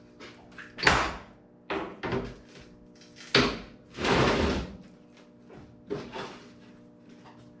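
Sharp metal clanks and knocks as steel truck-bed side pieces are clamped down tight at the end, with a longer clattering scrape about four seconds in. A steady low hum runs underneath.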